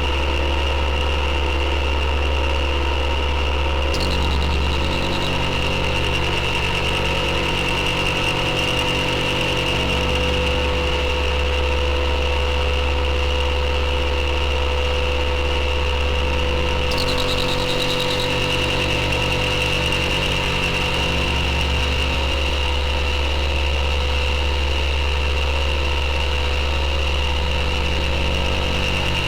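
Elektron Digitone FM synthesizer playing a sustained drone: a steady low hum layered with held mid and high tones. The low layer shifts about four seconds in and again around seventeen seconds.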